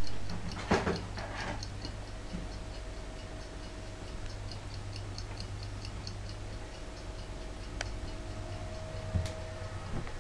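Fast, even mechanical ticking, several ticks a second, over a steady low hum. A knock and some brief clattering come in the first second and a half.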